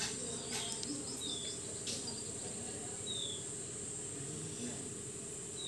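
Faint scratching of a ballpoint pen writing on lined notebook paper, over a steady high-pitched background whine. Three short high chirps, each dropping slightly in pitch, come about two seconds apart.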